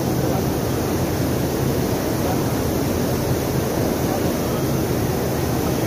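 Steady, even background din of a busy exhibition hall, a dense low rumble with no single voice or event standing out.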